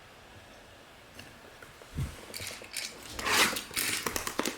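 Trading-card packaging handled on a table: a soft thump about two seconds in, then crinkling and rustling that gets louder toward the end.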